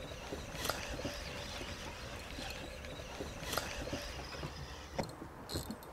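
Wind and water around a small fishing boat, a steady low rumble with scattered light ticks and two sharper clicks, about a second in and near the middle.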